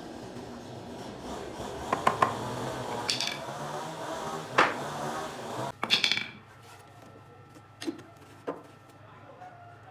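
Wooden furniture parts sliding and rubbing against each other, with several sharp knocks over the first six seconds. After that it goes quieter, with two light clicks.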